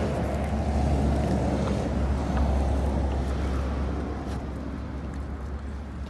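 Low, steady wind rumble buffeting the phone's microphone outdoors, easing slightly near the end.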